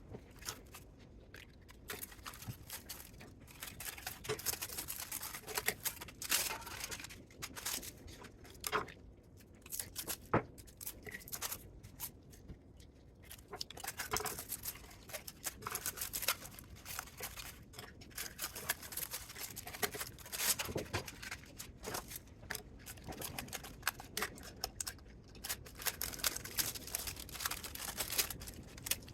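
Irregular clicks, snips and light metallic clatter of hand tools and parts as a spot welder is dismantled for scrap.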